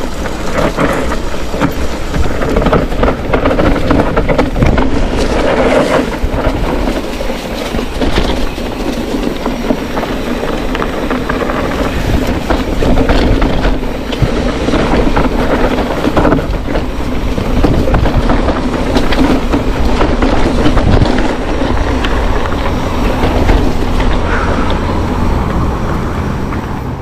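Mountain bike rolling fast over a rough trail: constant rumble and rattling of the bike over stones and roots.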